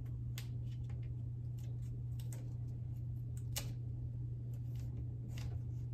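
Light, irregular ticks and crackles of blue painter's tape being pressed along a wooden door frame, over a steady low hum.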